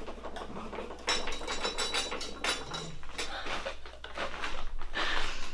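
Irregular light knocks, clicks and rustles of someone walking with a handheld camera: footfalls and handling noise, several small taps a second with no steady sound under them.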